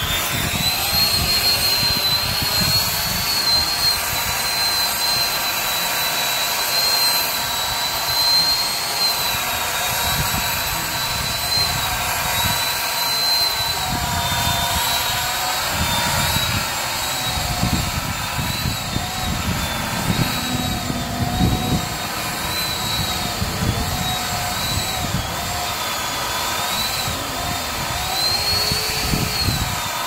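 A motor runs steadily with a high whine whose pitch wavers slightly, over an irregular low rumble.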